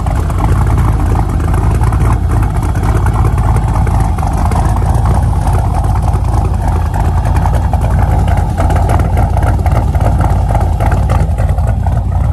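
Ford 351 Windsor small-block V8 in a Mustang, running loud and steady with a deep rumble, no clear revving.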